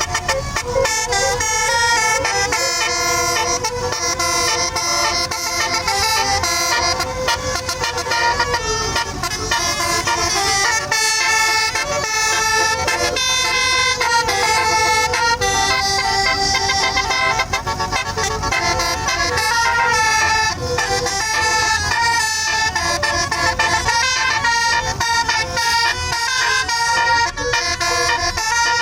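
Tour bus 'basuri' musical horn playing a tune: a run of held notes stepping from pitch to pitch, with several horn tones sounding together. A low rumble runs underneath.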